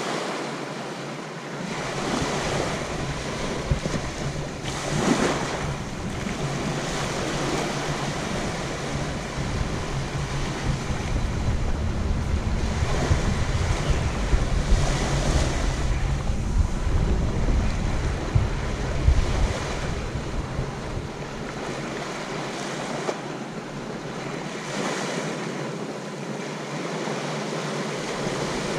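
Sea waves washing onto the beach, swelling and easing several times, with wind rumbling on the microphone through the middle stretch.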